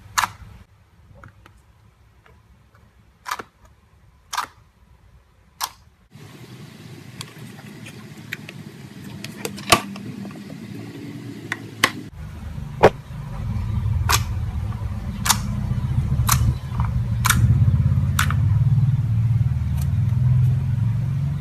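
Slime being handled by hand, giving sharp clicking pops at irregular intervals. A low, rough handling noise comes in partway through and grows louder in the second half.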